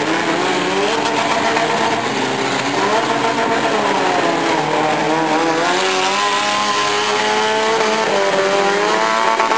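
Engines of several demolition derby cars revving, their pitch rising and falling as they drive and push at one another.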